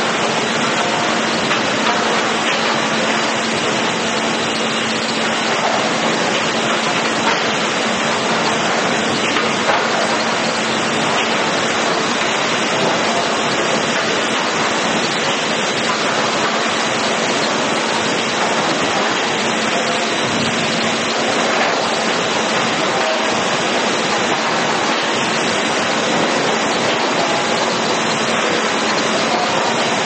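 Steady noise of sawmill machinery running: the conveyors and drives of a hardwood lumber grading line, with a constant hum underneath.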